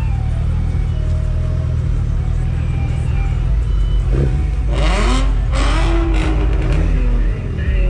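Motorcycle engine running low and steady at walking pace. About four seconds in come loud engine revs, two quick climbs in pitch, and a shorter rise and fall near the end.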